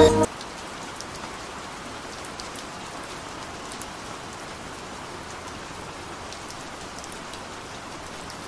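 Heavy rain falling steadily, with scattered sharp ticks of single drops striking close by. A music track cuts off just after the start.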